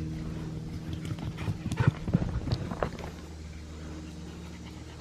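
Australian Shepherd's paws thudding on the trail as he runs, a quick string of footfalls about one and a half to three seconds in, over a steady low hum.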